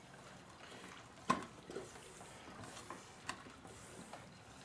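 A few faint clicks and light knocks from handling the tub of tire paste and tools, the sharpest about a second in and another about three seconds in.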